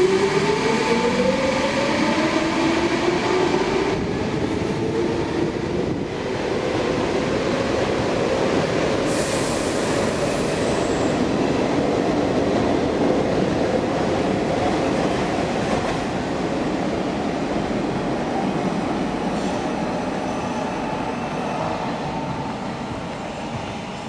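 Stockholm metro train pulling out of the station. Its traction motors whine in a rising pitch as it accelerates over the first several seconds, then it runs on in a steady rumble that slowly fades as it leaves.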